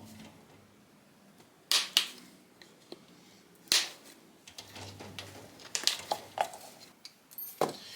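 Staples being pried and pulled out of an upholstered cushion board with a screwdriver and pliers: a few sharp snaps as staples come free, the loudest about two seconds in and near four seconds, with lighter clicks between and another snap near the end.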